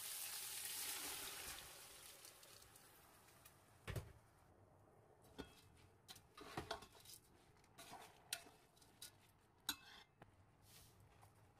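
Onions frying in oil in a rice cooker pot, sizzling for the first second or two and then fading; afterwards a metal slotted spatula stirring rice and lentils in the pot, giving a scattering of light clicks and scrapes against the pot.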